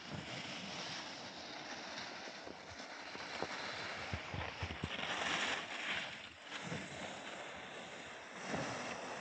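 Skis hissing and scraping over packed snow during a descent, with wind buffeting the camera's microphone. A louder scrape comes about five seconds in.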